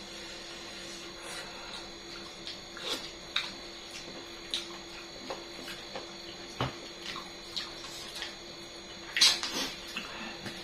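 A person eating chicken feet close to the microphone: scattered short smacks and clicks of chewing, with a louder cluster of them about nine seconds in. A faint steady hum runs underneath.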